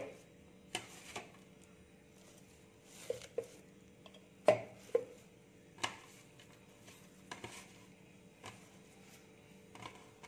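Irregular light knocks and rustles of hands pressing fresh coriander and mint leaves into a stainless steel mixer-grinder jar, about a dozen in all, the loudest about halfway through. A faint steady hum runs underneath.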